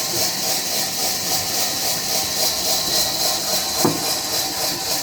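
A saw cutting through wood, a steady rasping hiss that pulses a few times a second, with a single sharp knock about four seconds in.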